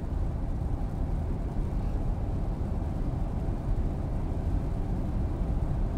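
Steady road noise heard from inside a car cruising at highway speed on rain-wet pavement: tyre and engine rumble, even throughout.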